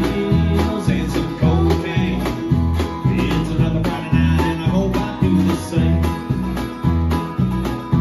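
Live country band playing: strummed acoustic guitar over electric bass, drum kit and keyboard, with a steady beat.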